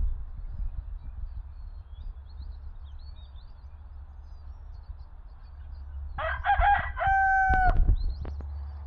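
French Black Copper Marans rooster crowing once, about six seconds in: a few short broken notes, then a long held note that drops at the end.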